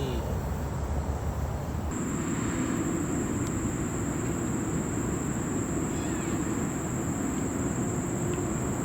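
Steady outdoor background: a continuous high-pitched insect drone over a low steady rumble. Both get louder about two seconds in.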